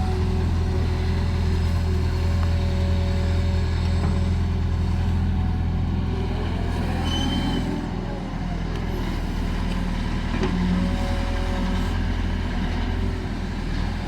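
Cat excavator's diesel engine running steadily under work, with a changing whine from the hydraulics and a brief high squeak about halfway through.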